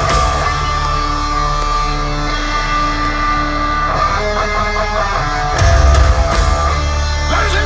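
Rock band playing live through a concert PA, recorded from the crowd: electric guitars over held notes, with a much heavier low end coming in about five and a half seconds in.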